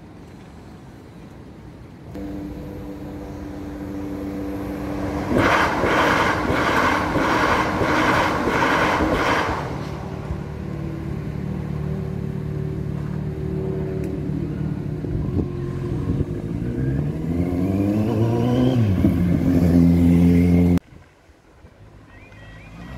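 A train passing over a level crossing: its motor hum builds, then a few seconds of rhythmic wheel clatter over the rail joints, followed by a steady motor hum whose pitch rises in steps near the end. The sound cuts off suddenly about 21 seconds in.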